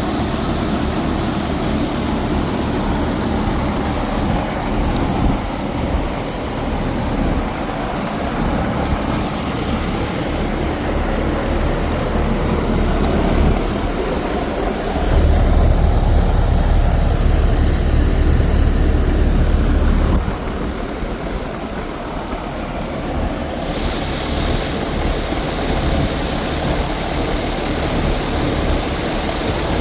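Air-conditioning unit running with a steady hiss over the whir of its machinery. A heavier low rumble swells for about five seconds in the middle, and the hiss turns brighter near the end.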